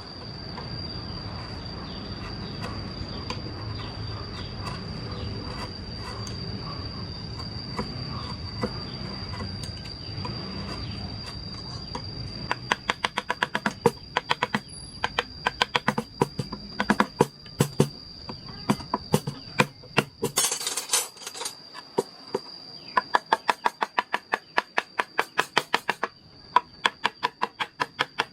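Quick runs of sharp taps, several a second, starting about halfway through, typical of a mallet driving a hand-carving chisel into wood; before them, a low scraping rustle. A steady high insect trill runs underneath.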